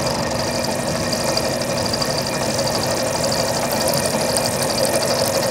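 Belt-driven milling machine running steadily, its 3/8-inch end mill in a drill chuck plunging slowly and lightly into a metal tube. An even machine hum with a fast, fine rattle through it.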